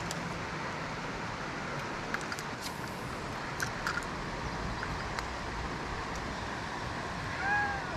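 Steady outdoor rushing noise, with a few faint clicks around the middle and a short call that rises and falls near the end.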